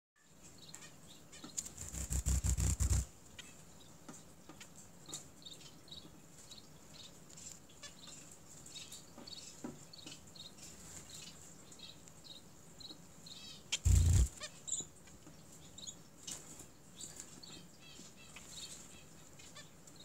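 Small pet finches, society finches and zebra finches, giving short, soft, high chirps every second or so. Two louder brief flurries of rustling break in, one about two seconds in and one about fourteen seconds in.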